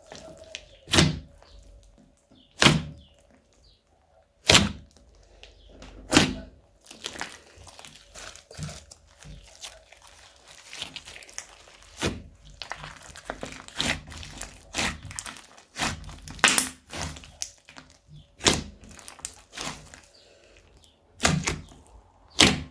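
Slime being mixed and squeezed by hand: sharp pops and clicks at irregular intervals, roughly every one to two seconds, with soft crackling between them.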